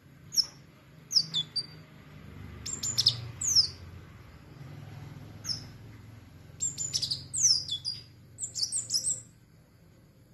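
Female sunbird calling: sharp, high chirps that sweep downward, given singly and in quick clusters of several, with pauses between groups.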